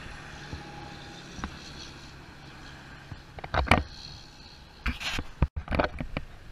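Outdoor street sound: a steady low rumble of road traffic, then a few short knocks and rustles. It breaks off abruptly about five and a half seconds in, where the sound changes.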